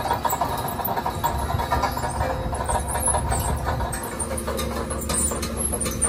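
Tracked skid steer's engine running steadily, with some light rattling and clicking in the last couple of seconds.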